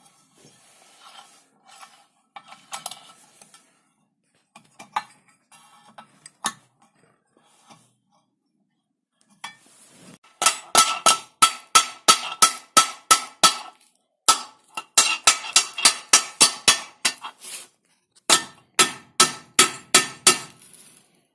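Hammer blows on the steel disc of a rotary mower, striking at a blade mount to knock the blade off, with the disc ringing after each blow. The blows come in three quick runs of about four a second, starting about halfway in; before them, quieter clinks of metal parts being handled.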